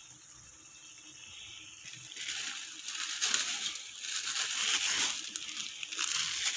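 Sardines, onions and misua noodles sizzling and crackling in a hot wok, faint at first and much louder from about two seconds in as the noodles go into the steaming pan.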